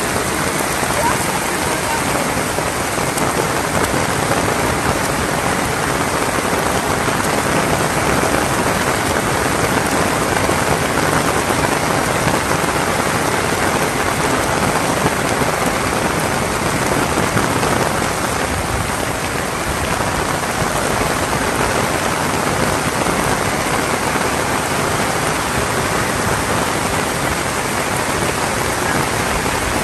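Heavy rain falling steadily and evenly, pattering on corrugated metal roofs and wet ground.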